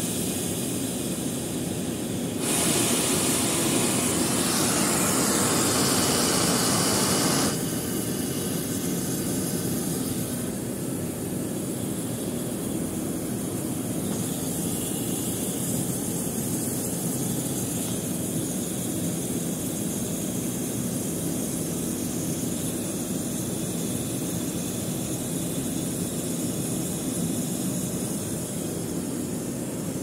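A steady mechanical drone of plant machinery. Over it, a loud hiss starts about two seconds in and lasts about five seconds, as a small drain valve on the chiller's water-cooled condenser is opened with a wrench and vents.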